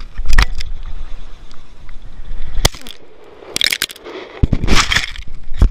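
Handling noise of an action camera moved over and against sand: a series of sharp knocks and scratchy scraping on the housing.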